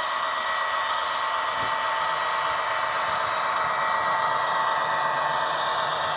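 Soundtraxx Econami sound decoder in a Bachmann model Class 66 playing a Class 66 diesel engine running under power through the model's small onboard speaker: a steady drone that holds one pitch.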